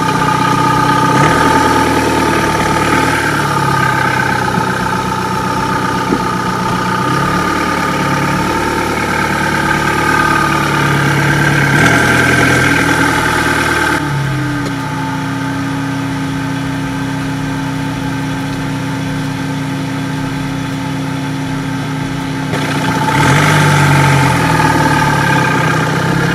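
Car engine idling and pulling at low revs as the car creeps slowly, with the engine note shifting several times. The note drops about halfway through and rises again near the end.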